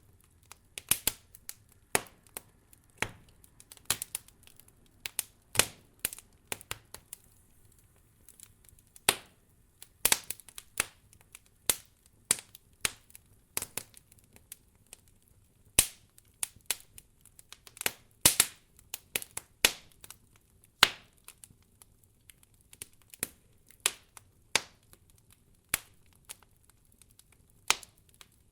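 Wood fire crackling: irregular sharp pops and snaps, one or two a second, some louder than others, over a faint low background.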